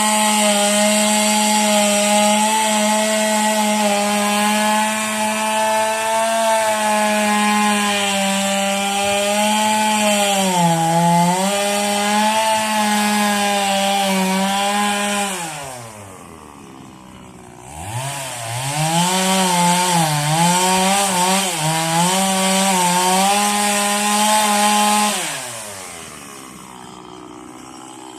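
Stihl two-stroke chainsaw held at full throttle, its pitch sagging as it bites into wood. About halfway through it drops to idle, revs back up and cuts again with the pitch wavering under load, then drops back to idle near the end.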